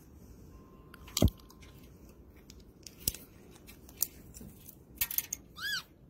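A few sharp clicks and cracks, the loudest about a second in, with a quick cluster of them near the end and a short, high chirp just after.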